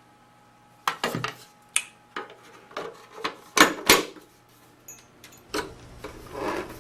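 A series of separate sharp clicks and knocks as accessory parts are handled and fitted onto a paintball marker, the loudest two coming close together about three and a half seconds in.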